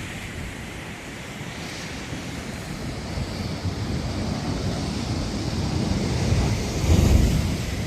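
Steady rush of wind and sea surf, with a gust buffeting the microphone near the end.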